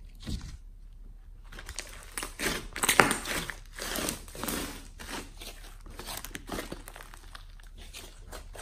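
Hands squeezing, stretching and folding a large soft slime mixed with clay: a dense, irregular run of small crackles and squishes, loudest about three seconds in.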